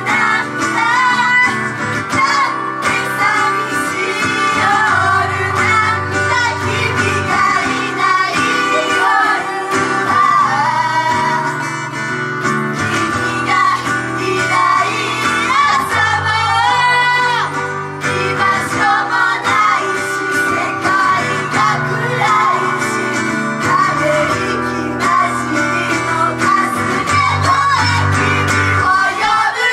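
Japanese idol-group song performed live through a club PA: female voices singing over loud backing music with guitar and a steady bass.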